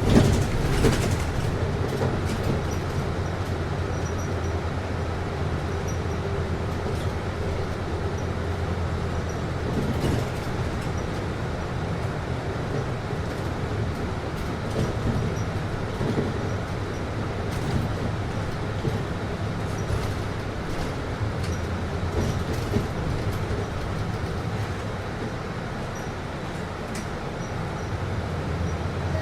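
Inside a city bus: a steady low drone from the bus's engine and air-conditioning system, with a few short rattles and knocks now and then.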